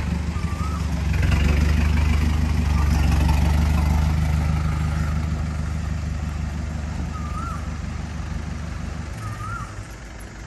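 Pickup truck engine running as the truck drives up close and pulls to a stop. It is loudest a second or so in, then fades, and the low drone drops away about nine seconds in.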